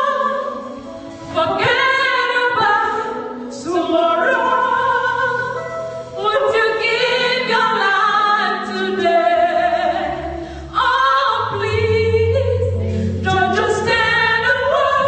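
Two women singing a gospel song through microphones, backed by a live church band with electric guitar and drums.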